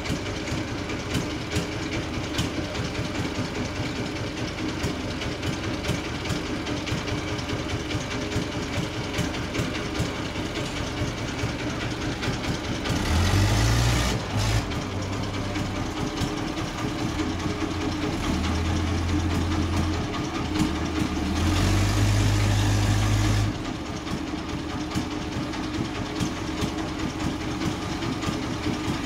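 Industrial bandsaw mill machinery running: a steady mechanical drone with fine, fast ticking, growing louder and deeper three times, about halfway in and twice more soon after.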